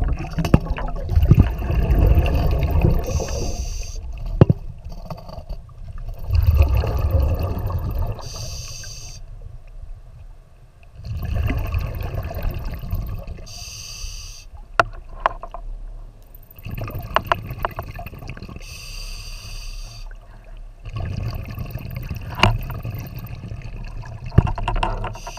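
Scuba diver breathing through a regulator underwater: a bubbling rumble of exhaled air lasting a couple of seconds alternates with a short hiss on each inhale, about one breath every five seconds. A few sharp knocks of gear against rock come through.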